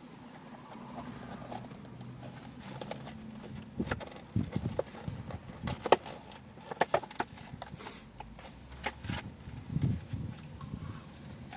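Close-up eating sounds: chewing and crunching on fried takeout food, with scattered sharp clicks and short knocks, busiest in the middle of the stretch.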